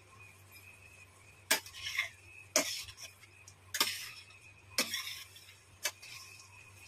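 About half a dozen sharp metallic clinks against a stainless steel kadhai, irregularly spaced, as utensils and spice are handled over the pan. Under them runs a faint steady whine and hum from the induction cooktop.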